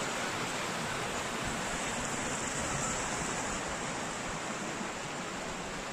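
Steady rushing of water: a river-sized spring gushing out of the rock and running off as a stream.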